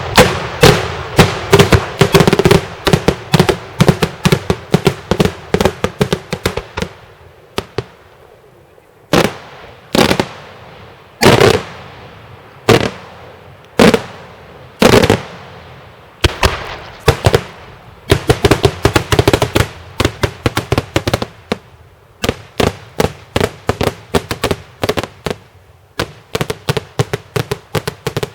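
Daytime fireworks display, shells bursting in sharp bangs: a fast barrage for the first several seconds, then a handful of single heavy bangs a second or two apart, then another fast run of crackling bangs to the end.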